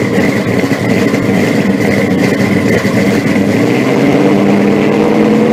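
Car engine running steadily.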